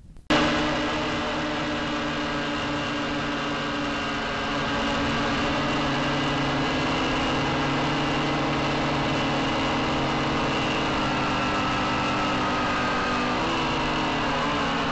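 Hermit 145 V2 micro quadcopter's electric motors and propellers in flight, a steady multi-toned whine picked up by the onboard camera. Near the end, a few of the tones waver and glide in pitch.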